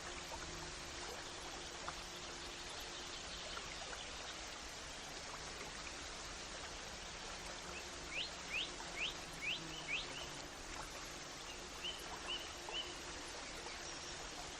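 Steady rush of a flowing stream. A bird calls over it with a quick run of five sweeping notes about eight seconds in, then three short notes a couple of seconds later.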